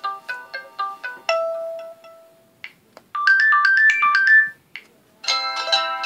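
LG K10 LTE ringtones played one after another. A quick repeating melody ends on a held, fading note about a second in. After a short pause a brief, bright melody plays, and near the end a fuller ringtone begins.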